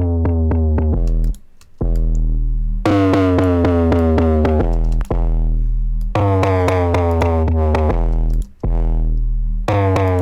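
Looping 808 bass sample run through multiband distortion (Thermal): steady low end under a buzzing, distorted top band whose pitch slides down on each note, with rapid rhythmic clicks. The loop drops out briefly about one and a half seconds in and again near the end.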